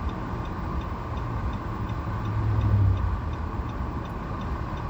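Car engine and road noise heard from inside the cabin while driving, a steady low rumble that swells briefly about halfway through. A light, regular ticking about twice a second runs over it.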